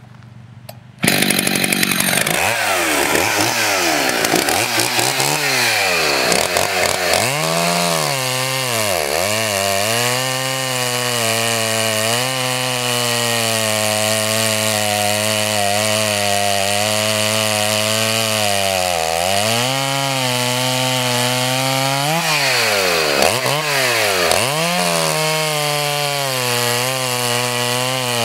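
Stock Husqvarna 61 two-stroke chainsaw running at full throttle and cutting through a log. The sound comes in abruptly about a second in, and the engine's pitch dips and recovers several times as the chain bites and the saw bogs under load.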